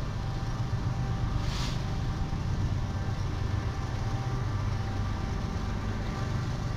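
Diesel locomotive engine running steadily, with a short hiss about a second and a half in.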